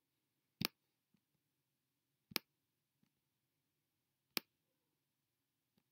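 Computer mouse button clicks: three sharp single clicks about two seconds apart, with a few fainter ticks between them.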